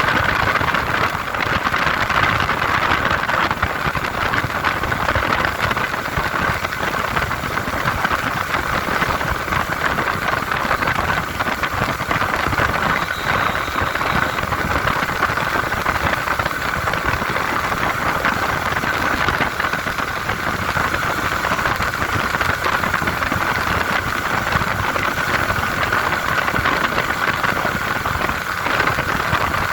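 TVS Apache 160R motorcycle's single-cylinder engine running steadily while riding, under a steady rushing noise.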